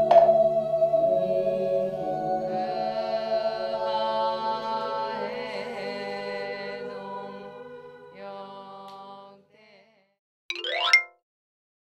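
Background music of soft, long-held notes, fading out over about nine seconds. Near the end comes a short, loud sound effect that sweeps quickly upward in pitch.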